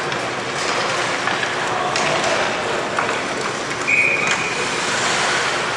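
Ice hockey game sound in an arena: a steady noisy wash with scattered clacks of sticks and puck and some voices. About four seconds in comes one short blast of a referee's whistle.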